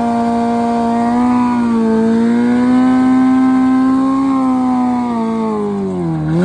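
Suzuki Hayabusa drag bike's inline-four engine, with a Brock's exhaust, held at steady high revs during a burnout while the rear tyre spins. The pitch swells slightly now and then, falls away about six seconds in, and rises again in a quick blip at the end.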